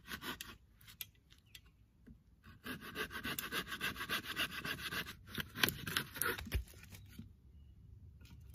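Hand saw cutting through a dry dead branch in quick, rasping back-and-forth strokes. The strokes stop briefly about half a second in, start again about two and a half seconds in, and end with a low knock about a second before the end as the cut goes through.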